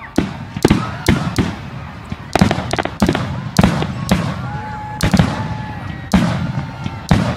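Aerial fireworks shells bursting: about a dozen sharp bangs at uneven intervals, some in quick pairs, each trailing off in an echo.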